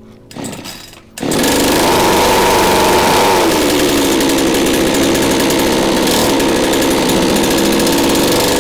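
Single-cylinder two-stroke chainsaw engine (3.5 hp) driving a motorized longboard, running loud and steady at high revs. A short burst comes about half a second in, the engine comes in fully just after a second, and its pitch dips slightly around three and a half seconds in.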